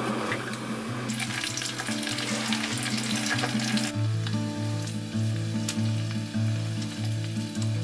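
Breaded smelt frying in a pot, a dense crackling sizzle that is strongest for the first few seconds and then settles lower.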